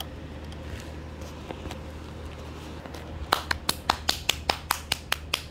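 Faint room hiss, then a rapid run of sharp clicks, about five a second, starting a little after three seconds in.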